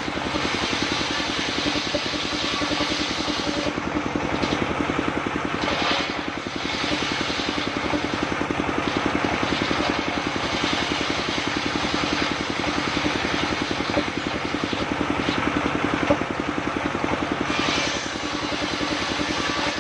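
Single-cylinder diesel engine running steadily and driving a circular saw that rips mahogany boards, the cutting noise rising and falling over the engine's rapid, even beat.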